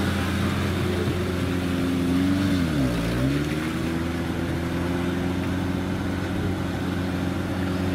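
Engine of a caged off-road 4x4 running at low, steady revs as it crawls through mud; about three seconds in the engine speed drops sharply for a moment and then picks back up.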